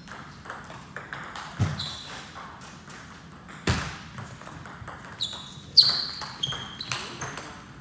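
Table tennis rally: the celluloid ball clicks off bats and table again and again, with short high squeaks of shoes on the wooden floor and a couple of low thuds of footfalls as the players move; the loudest squeak comes near the end.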